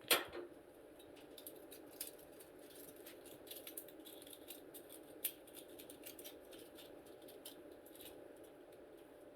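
Thin drink can being cut and worked by hand into a makeshift funnel: a sharp click right at the start, then a run of faint small crinkles and ticks from the thin metal over a steady low hum.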